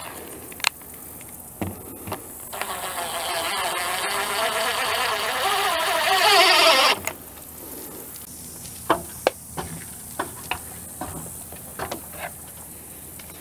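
Power drill driving a long timber screw into a beam: the motor runs for about four and a half seconds, rising in pitch and loudness toward the end, then stops abruptly. A few short sharp taps and clicks follow.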